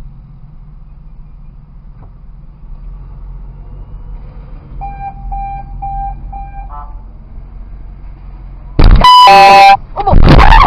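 Low steady drone of a car at a standstill, with a short run of about five beeps on one tone about five seconds in. Near the end a car horn sounds one loud blast lasting about a second, and a loud voice breaks in right after.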